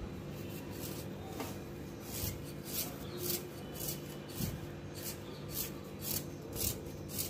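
Metal vegetable peeler scraping the skin off a raw potato: short rasping strokes, about two to three a second, starting about a second in.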